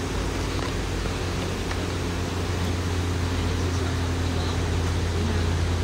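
A steady low mechanical hum over even background noise.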